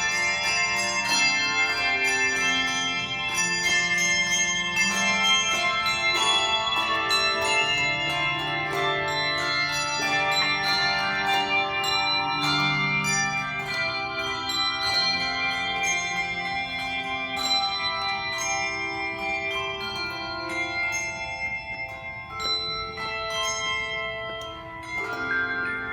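A handbell choir playing: many tuned handbells struck in overlapping chords and left to ring. The playing grows quieter for a few seconds shortly before the end.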